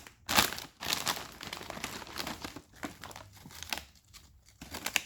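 Crinkling and rustling of a plastic chip packet being opened and handled, in irregular bursts that are loudest in the first second.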